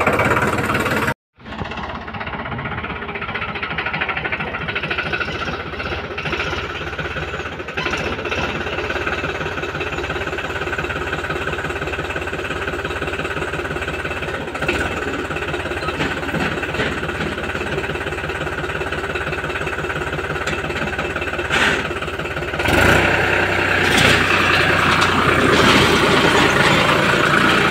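New Holland tractor's diesel engine running steadily with a rapid, even knock. It grows louder in the last few seconds.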